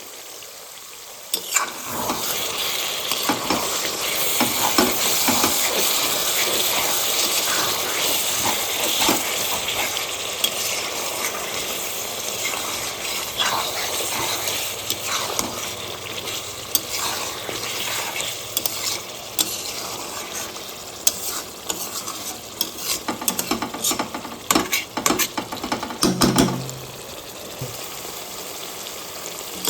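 Chicken gizzards stir-fried in spiced oil in a pan: a steady sizzle, with frequent clicks and scrapes of the spatula against the pan. The sizzle grows louder about a second and a half in.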